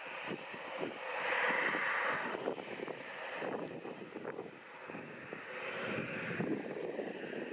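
Airbus A320neo's Pratt & Whitney geared turbofan engines running at low taxi thrust: a steady jet rush that swells louder about a second in and again near the end.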